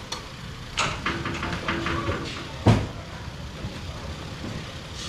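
A run of knocks and clatters, boxes being handled and set down while a truck is unloaded, with a short squeak in the middle of the run. One loud thump follows a little past halfway.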